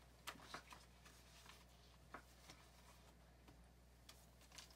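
Near silence: room tone with a steady low hum and a few faint light clicks, several in the first second and one about two seconds in.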